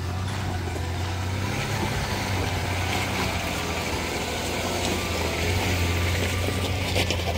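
Land Rover Discovery 3 (LR3) crawling slowly past over a wet, rocky dirt track: a steady low engine hum with tyre noise on the stones, and a run of sharp clicks near the end.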